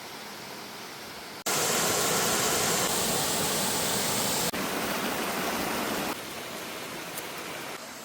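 Waterfall, a steady rush of falling water that jumps abruptly much louder about a second and a half in, then steps back down in stages near the middle and toward the end.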